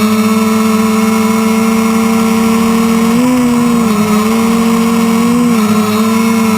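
Quadcopter's electric motors and propellers running with a steady, pitched buzz. The pitch rises briefly twice, about three seconds in and again near five and a half seconds, then settles back as the motors speed up and slow down.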